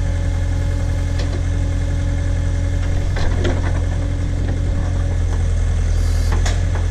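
Case / Davis D100 backhoe's engine running steadily with a deep hum, and a few short knocks and clatters from the digging, about a second in, around three seconds in and near the end.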